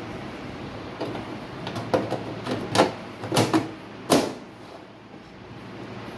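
Desktop computer case being handled: a run of sharp knocks and clicks over about three seconds, the loudest near the end, over a steady low background noise.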